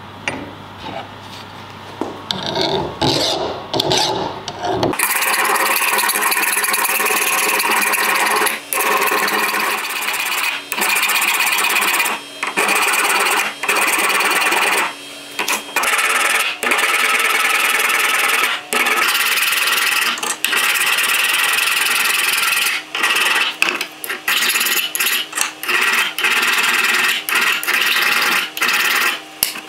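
Hand files rasping on the steel of a spring-steel knife, in long runs of strokes with brief breaks. The first few seconds hold only lighter handling knocks before the filing starts.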